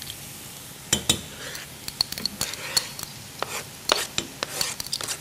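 Wooden spoon stirring food in a stainless steel pot, with irregular clicks and knocks of the spoon and utensils against metal.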